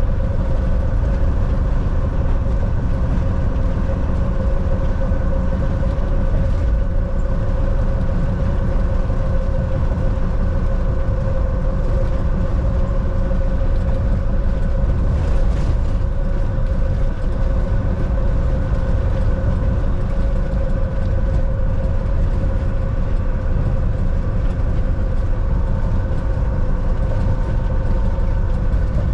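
Volvo semi-truck's diesel engine and tyres running at a steady cruise: a continuous low drone with a faint constant whine above it.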